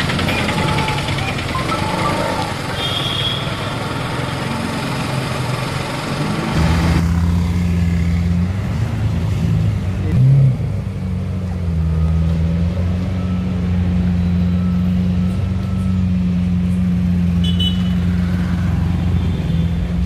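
Supercar engine sound: first a Lamborghini Huracán running at low speed amid street noise, then a Lamborghini Aventador's V12 idling with a steady deep rumble, swelling briefly once about ten seconds in.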